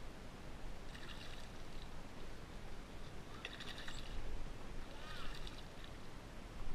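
A hooked bass splashing at the surface beside a boat in three short bouts: about a second in, around three and a half seconds in, and again about five seconds in.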